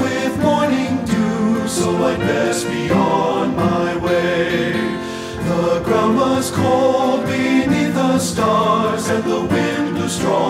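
Men's choir singing a folk-style song with piano accompaniment.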